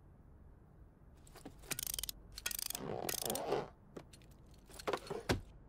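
Clockwork wind-up key being turned: several bursts of ratcheting clicks starting about a second in, then a few single clicks near the end.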